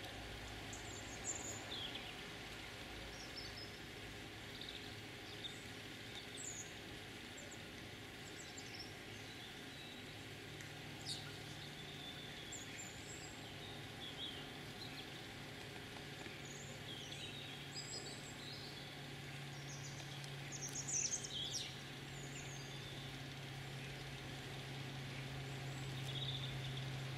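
Outdoor quiet with small birds chirping now and then, a little busier about three quarters of the way through, over a steady low hum and faint background noise.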